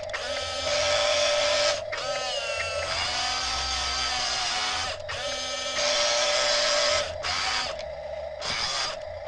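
Electric drive motor and plastic gearbox of an RC toy wheel loader whining as it drives, the pitch rising and falling with the throttle, in runs of a few seconds broken by abrupt short breaks.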